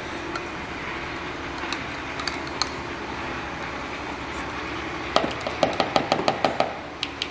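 A metal measuring spoon scrapes minced garlic out of a small glass jar with a few faint clicks. It is then tapped quickly against the mixing bowl about ten times in a little over a second, each tap a short ringing click, to knock the garlic off.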